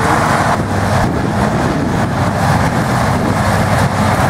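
Heavy farm machinery engine running steadily, with a continuous low engine drone and mechanical noise.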